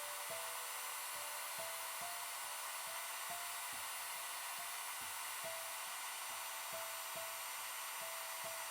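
2000-watt A-BF FQ-2000E heat gun running, its fan blowing a steady, even hiss of air. Quiet background music with a simple melody plays under it.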